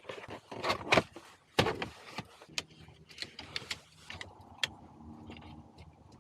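Sharp plastic clicks and snaps with handling knocks, as a plastic interior cover panel is unclipped and pulled off. The snaps are loudest in the first two seconds, then thin out to scattered ticks over a faint steady hum.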